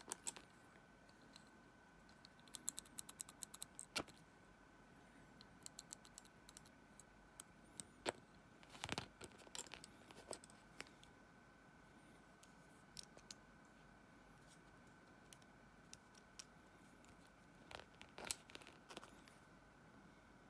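Silver pens being handled, giving scattered light metallic clicks and taps as they knock together and against the fingers, with a quick rattle of clicks between about two and four seconds in and small clusters near nine and eighteen seconds. A faint steady high tone runs underneath.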